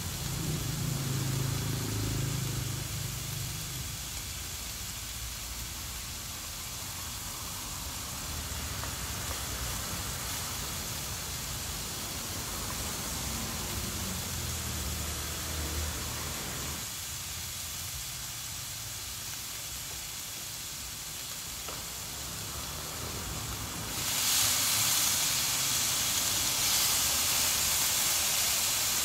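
Steady hiss and sizzle from a hot moo kratha grill pan with simmering broth, turning louder and brighter near the end as thin slices of raw meat are laid on the hot grill dome.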